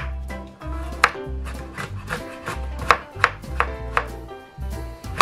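Chef's knife slicing a carrot into thin strips on a wooden cutting board: a run of crisp knocks of the blade on the board, about two to three a second, over background music.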